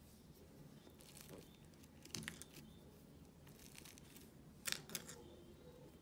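Light-blue plastic sculpting tools pressed and scraped into soft air-dry clay in a plastic pot: a few faint scrapes and clicks, a small cluster about two seconds in and two sharper clicks near the end.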